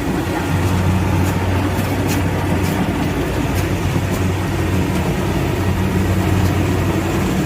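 Kubota tracked combine harvester running steadily with a constant engine hum, faint light ticks scattered over it.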